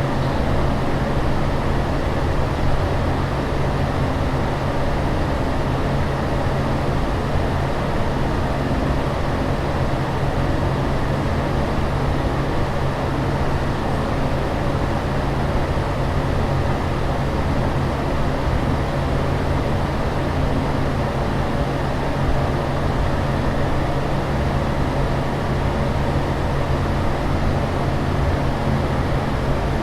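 Aircraft cabin noise: a steady rushing drone with a low hum underneath, unchanging throughout.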